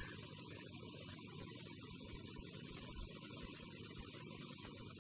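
Faint, steady electrical hum and hiss: the room tone of the microphone and sound system.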